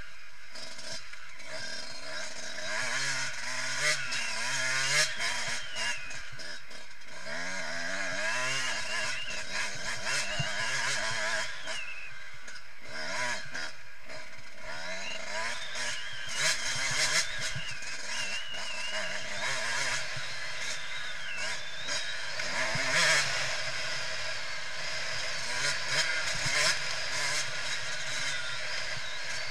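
A 2014 Yamaha YZ125 two-stroke single-cylinder motocross engine revving up and down over and over as the bike is ridden hard around the track, its pitch rising and falling with each gear and throttle change, with occasional knocks from the bike over the ruts.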